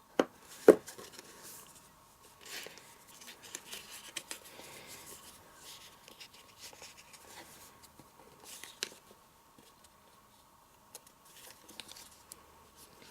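Thick cardstock being handled and folded by hand. Two sharp clicks about half a second apart open the passage, followed by intermittent rustling, scraping and creasing of the card.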